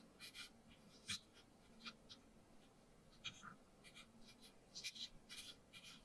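Tiny knife cutting around the inside of a small red bell pepper to hollow out its core: faint, crisp scraping strokes at an irregular pace, the sharpest about a second in.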